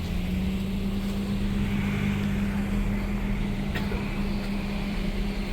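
A motor running steadily with a constant low hum.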